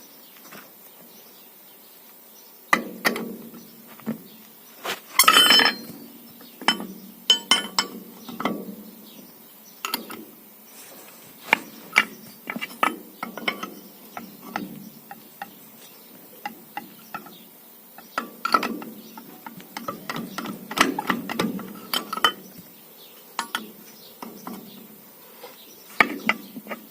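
Irregular clinks and knocks of hand tools and parts being handled, with a louder scraping rattle about five seconds in.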